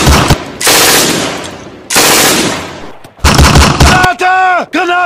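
Machine-gun fire sound effects: a rapid burst, two heavy shots with long fading tails, and another rapid burst about three seconds in. Near the end come several short pitched sounds that rise and fall in pitch.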